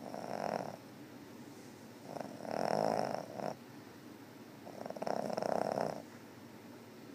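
A sleeping pet snoring: three slow snores about two and a half seconds apart, each lasting roughly a second.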